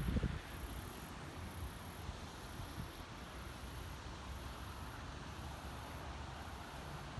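Insects chirping high and shrill in regular pulses, about one a second, over a faint background of wind. A gust buffets the microphone right at the start.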